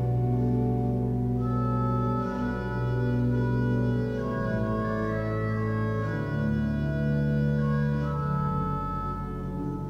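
Church pipe organ playing slow, sustained chords that change every second or two.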